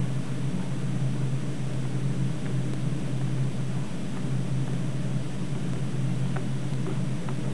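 Steady low hum with an even hiss over it, unchanging throughout, and a few faint small clicks in the second half.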